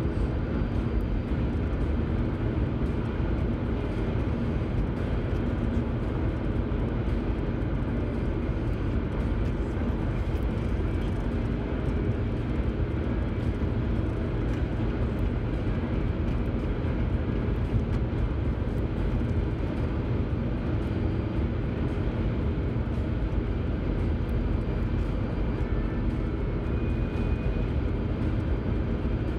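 Car cruising at highway speed, heard from inside the cabin: a steady low rumble of tyre and engine noise.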